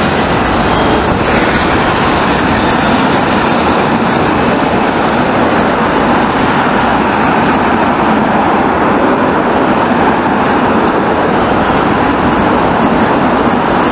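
Steady road traffic noise from cars passing on a city street.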